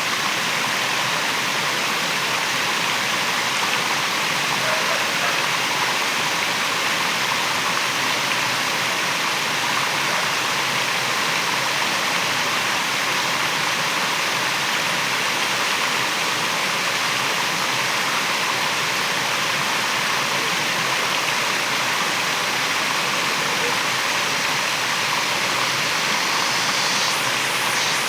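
Waterfall: a steady, unbroken rush of falling and splashing water.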